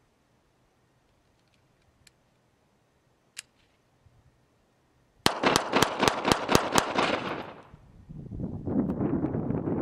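Bersa Thunder .380 ACP pistol fired rapidly about halfway through: about eight sharp shots in under two seconds, roughly five a second, with echo trailing off after the last.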